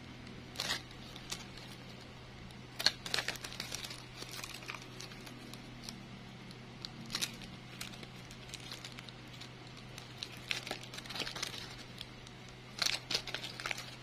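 Crinkling of a handmade flower's plastic-bag petals as they are squeezed and handled, in about five short crackly bursts over a faint steady low hum.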